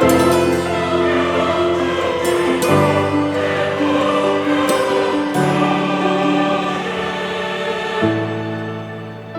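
Background music of sustained choir-like chords, the chord changing every two to three seconds.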